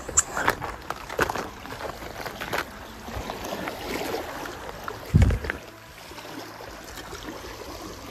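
Small sea waves lapping and splashing against the rocks at the water's edge, with a loud low thump about five seconds in.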